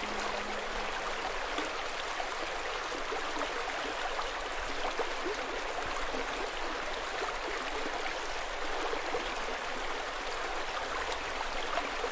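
River water running steadily over rocks: an even rushing noise that stays the same throughout.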